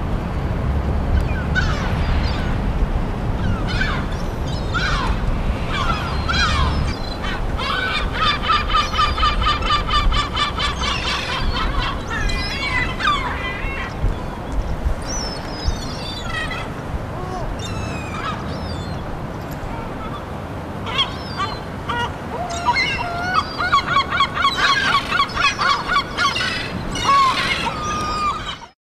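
A flock of large gulls calling over scattered food, with squeals and two long runs of fast repeated calls. A low rumble sits under the first several seconds.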